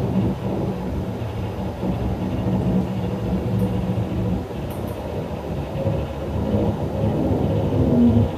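Cello and saxophone improvising together in a dense, low, rough texture of bowed and blown sound. It runs continuously with a few held low pitches, and new pitches come in near the end.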